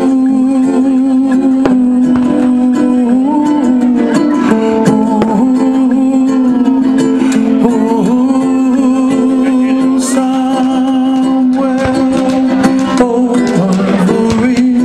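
Background music: a strong held low note with a melody moving above it, steady in loudness throughout.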